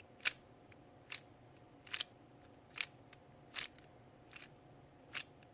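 Cyclone Boys FeiJue M magnetic 3x3 speedcube turned slowly one face at a time, each turn giving a short plastic click, about one every 0.8 seconds, seven in all.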